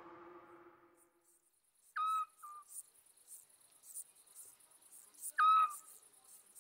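Night ambience: insects chirping in a steady high pulse, about one and a half chirps a second. A short whistled call, the loudest sound, comes twice, about three seconds apart; the first is followed by a brief second note. Music fades out in the first second.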